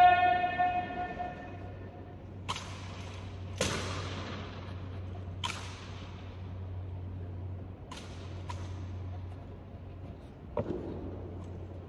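Honor guard drill strikes: rifles and boot heels hitting a stone floor as sharp cracks, about six of them one to two seconds apart, each ringing out with a long echo, over a low steady hum.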